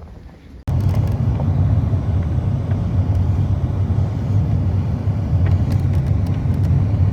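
Loud, steady low rumble of a vehicle in motion, starting abruptly under a second in, with a few faint ticks over it.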